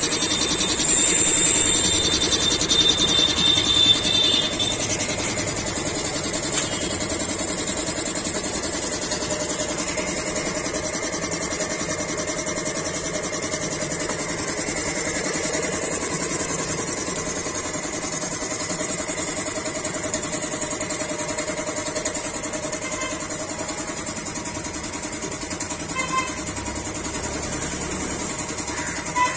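Belt-driven electric air compressor running steadily, its piston pump refilling the tank after the pressure switch has restarted it. It is a little louder with a hiss for the first few seconds, and there are a couple of short clicks near the end.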